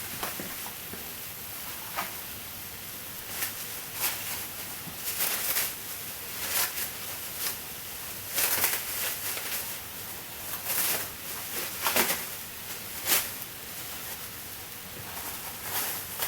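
Spices and garlic-ginger paste frying in a pan with a little curry base gravy, a steady sizzle with irregular short scrapes from stirring.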